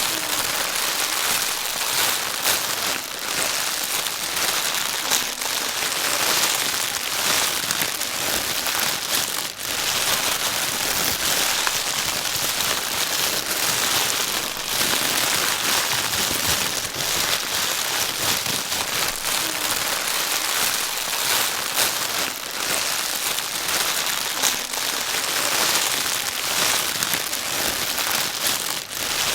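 Plastic bag being crinkled and rustled without pause, a dense crackling rustle: the sound played to soothe a crying baby.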